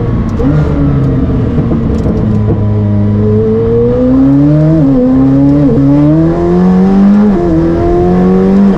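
A sports car's engine accelerating hard through the gears. Its pitch climbs steadily and falls sharply at each of three quick upshifts.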